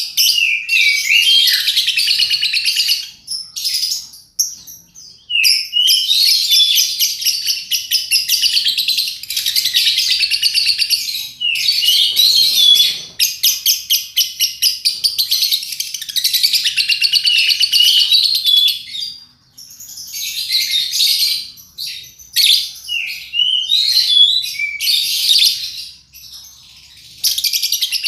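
Lovebird singing: long runs of rapid, high chattering chirps lasting several seconds each, broken by short pauses.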